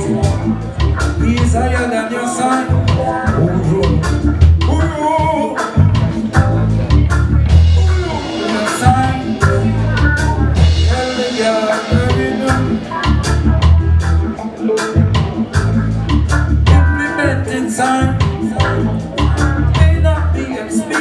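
Live roots reggae band playing: a heavy bass line in a steady repeating pattern, drum kit, electric guitars and keyboard, with a male lead vocalist singing over it.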